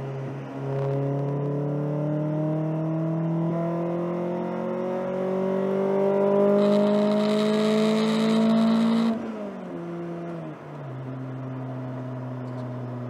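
Honda Prelude's H22A4 four-cylinder engine under hard acceleration through an aftermarket 1320 header, 2.5-inch exhaust, resonator and Arc muffler. The engine note rises steadily, taking on a harsher, hissier edge from about six and a half seconds in, high in the rev range. About nine seconds in the pitch drops sharply for an upshift, and the engine then pulls on at a steady lower note.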